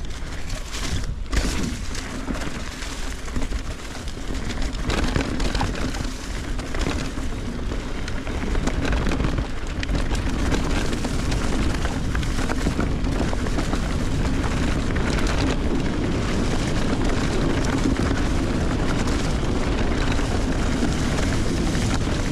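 Wind buffeting the microphone with tyre and trail noise from a mountain bike riding a trail, a few sharp clicks near the start, then a rushing rumble that builds over the first several seconds and stays steady.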